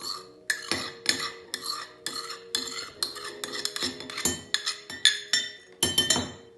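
Metal utensil clinking against a dish over and over, about three strikes a second, each with a light ring.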